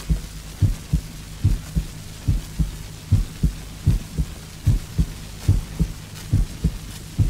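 Recorded normal human heart sounds played from a 1957 78 rpm shellac record: a regular lub-dub, the first and second heart tones in even pairs a little over one a second. A steady low hum and record surface hiss run underneath.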